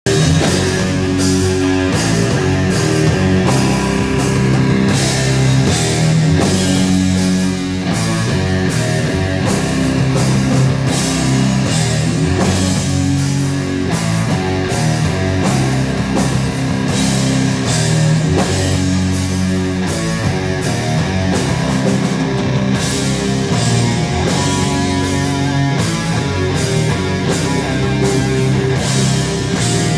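Live heavy metal band playing: two electric guitars, electric bass and a drum kit, with steady cymbal and drum hits over heavy low guitar and bass parts.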